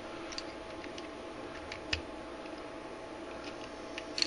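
Scattered small metal clicks and light knocks of a 1911 pistol's slide and parts being handled and fitted onto the frame during reassembly, the loudest about two seconds in and at the end, over a steady low hum.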